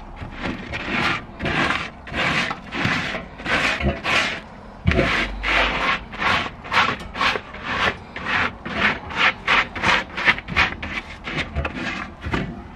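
Scrubbing brush rasping back and forth over the grimy inside of a metal barbecue bowl wet with soapy water, in quick even strokes about two to three a second, getting faster in the second half. A dull bump sounds about five seconds in.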